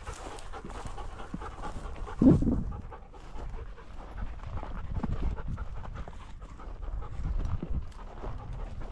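A dog panting hard close by, over the rustle and crunch of walking through dry grass, with one brief louder sound about two seconds in.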